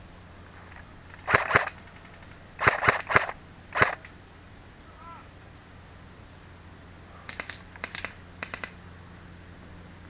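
Airsoft guns firing short bursts of sharp shots: several loud groups of one to three shots in the first four seconds, then a fainter group a few seconds later.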